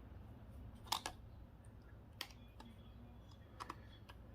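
Faint, scattered clicks and taps of a small hand tool and the plastic parts of a GPS unit being handled during disassembly: a pair about a second in, one about two seconds in, and a quick pair near the end.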